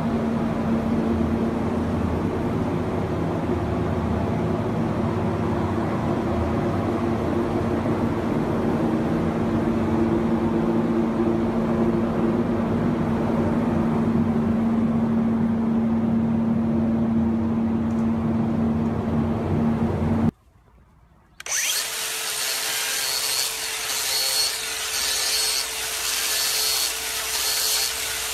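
A steady mechanical hum with a low even tone for about twenty seconds. Then, after a second of silence, a handheld power tool with a spinning sanding disc runs across the sawn end grain of a log.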